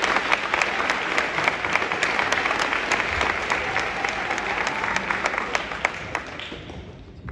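Audience applauding: many hands clapping steadily, then dying away near the end.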